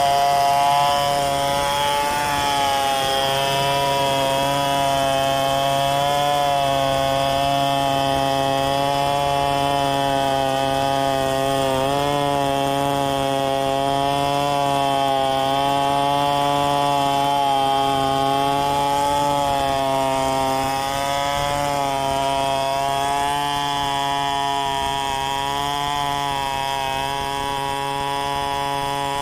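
Large two-stroke chainsaw running at high throttle while ripping a log lengthwise in freehand milling, its pitch wavering slightly as the chain is loaded in the cut.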